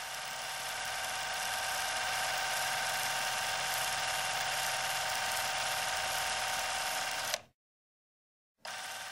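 A steady buzzing drone with many overtones. It cuts off abruptly about seven and a half seconds in and returns after a second of silence.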